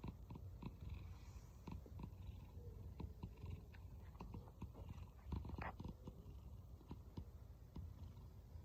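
Domestic cat purring: a low, pulsing purr that sounds like snoring.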